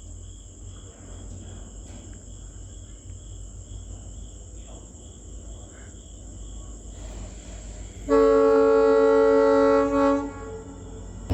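Low steady rumble of an EMD diesel locomotive engine. About eight seconds in, the locomotive's air horn sounds one loud blast of about two seconds.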